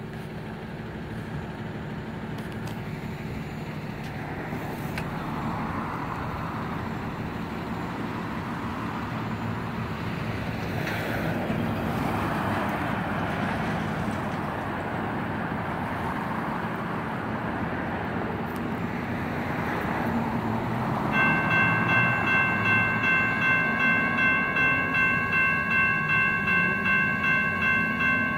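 Street traffic noise, then about 21 seconds in the crossing's General Signals electronic bells start ringing, a steady clanging tone pulsing about twice a second. This is the crossing activating for an approaching light rail train.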